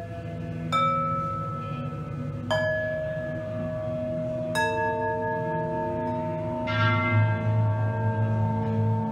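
Metal pans and bowls struck in turn, each ringing on with a long, bell-like tone that overlaps the next: three strikes about two seconds apart. Near seven seconds a denser metallic ring with many overtones enters over a low hum.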